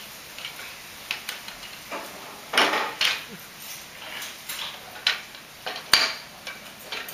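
Hard plastic toy pieces clacking and being set down on a wooden table: a string of irregular knocks and clatters, the sharpest a little after five seconds in.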